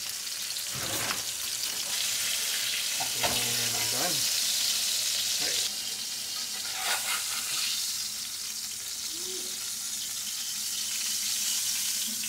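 Butterflied rainbow trout sizzling steadily as it pan-fries in hot fat in a cast-iron skillet, with a few scrapes and clinks of a metal spatula against the pan as the fish is lifted out.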